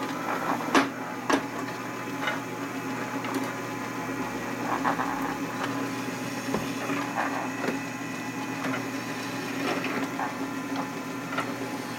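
Drill press running steadily while a chamfer cutter deburrs the drilled holes of a floating brake rotor, with short scraping cuts at intervals. A few sharp metallic clicks about a second in.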